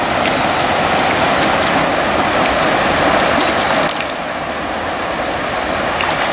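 Shallow creek water rushing steadily over rocks and riffles, a little quieter from about four seconds in.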